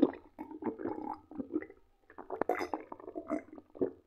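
A man gulping ayran, a drinking yogurt, from a glass: a run of close, wet swallowing sounds with a short pause about two seconds in.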